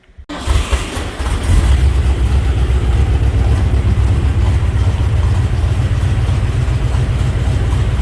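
A 1980 Ford F-150 pickup's engine running steadily, coming in suddenly near the start and growing louder over the first second and a half.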